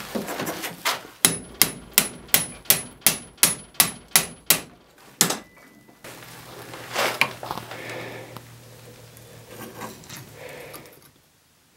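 Hand hammer striking red-hot pattern-welded steel held in a bench vise while forging a jew's harp: a quick run of about a dozen blows, roughly three a second, each with a high metallic ring. One more blow follows, then a low hum and softer scraping as the piece is handled.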